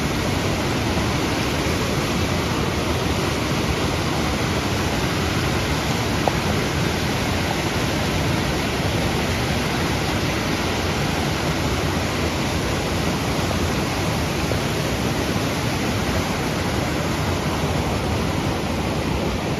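Waterfall's water rushing, loud and even throughout.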